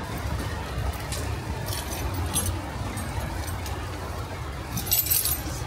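A bunch of keys jangling and clinking in hand: a few short clinks about two seconds in and a louder cluster near the end, over a low steady rumble.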